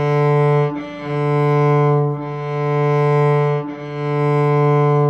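Open D string of a cello bowed with only the weight of the bow, in slow, even strokes back and forth: one steady, peaceful note that dips briefly at each bow change, about every second and a half. This is the bow's natural sound with no pressure added by the player.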